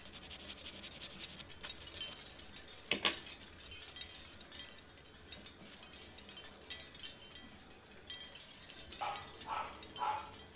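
Small metal needle file scraping in light strokes against a tiny metal finger-bike frame part, with one sharp click about three seconds in. Near the end come three short, pitched yelps.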